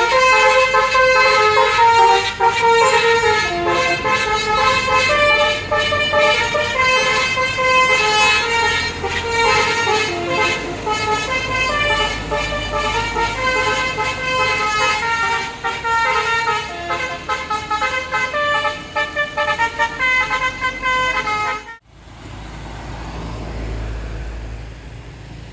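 A bus's basuri musical horn playing a long melody of stepped multi-note horn tones. It cuts off abruptly near the end, leaving a low engine rumble.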